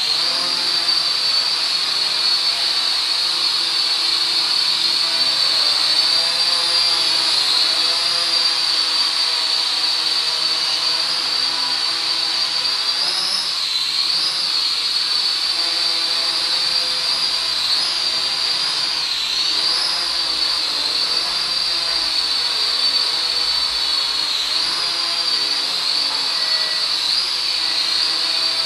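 Zero-X Pulse mini quadcopter hovering: its small motors and propellers make a steady high-pitched whine. The pitch dips and recovers several times, mostly around the middle and near the end, as the throttle is adjusted to steer it.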